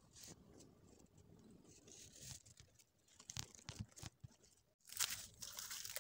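Faint rustling and crackling of dry garden litter (pine needles, dead leaves and twigs) being disturbed, with a cluster of sharper crackles past the middle and a denser rustle near the end.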